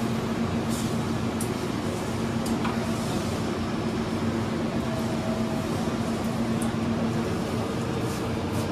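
Steady machine hum with fan-like noise and a constant low tone, with a few faint clicks and taps as hands handle the wiring.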